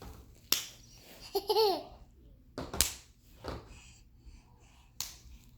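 A baby laughing in short bursts, with one brief call that falls in pitch. Three sharp pops, about two seconds apart, are the loudest sounds.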